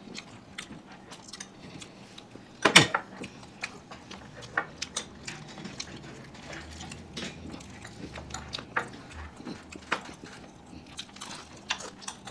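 Close-miked eating sounds: bites and chewing of crispy fried chicken drumsticks, soft cake and rice, a steady scatter of sharp clicks, smacks and crunches, with one much louder sharp crunch or knock about three seconds in.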